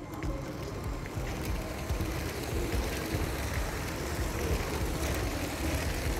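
Motorised LEGO train rolling past on plastic track: a steady rumble of wheels on the rails, a little louder from about two seconds in.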